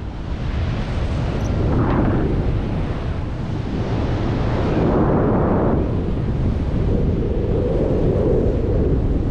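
Wind buffeting the action camera's microphone in flight under a tandem paraglider: a loud, steady rumble of rushing air that swells and eases.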